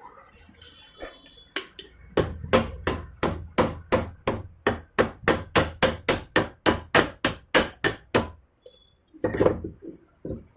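Rapid, evenly spaced knocks, about three a second for some six seconds, then a short pause and a couple more: the end cover of a desert-cooler exhaust fan motor being tapped to work it loose from the motor body.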